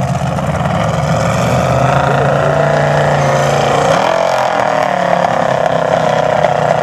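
Formula Offroad hillclimb car's engine running hard as the car climbs a steep sand slope with its wheels spinning. Its pitch dips about four seconds in and then picks up again. The commentator takes this for the engine not running properly.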